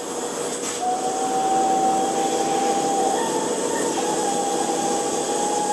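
A machine running steadily: a constant hiss with a thin high whine that comes in about a second in and steps up slightly in pitch about three seconds in.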